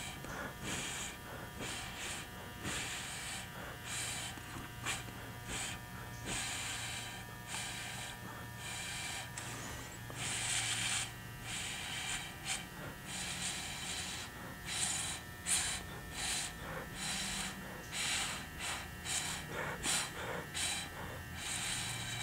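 Short puffs of breath blown through a drinking straw to push wet acrylic pour paint around on a canvas, repeating irregularly about once a second.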